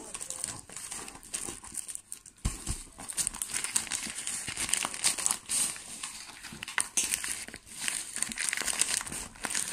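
Paper packing material being crumpled and rustled by hand while a parcel is unwrapped, with a brief lull and a dull knock about two and a half seconds in.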